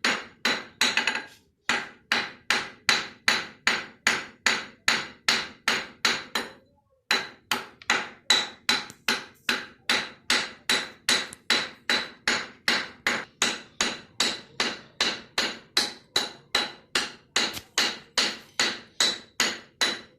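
Steady hammer blows, about two and a half a second, each with a short metallic ring, broken by two brief pauses. This is typical of hammer work while repairing a chakki.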